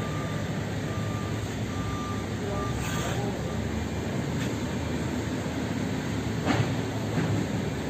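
Steady low mechanical rumble, with faint, broken high beeping in the first few seconds and a few sharp clicks, the loudest about six and a half seconds in.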